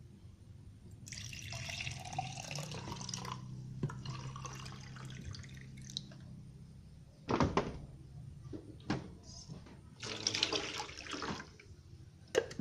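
Liquid poured into a cooking pot in two spells, with a few sharp knocks of pot and utensils in between, over a low steady hum.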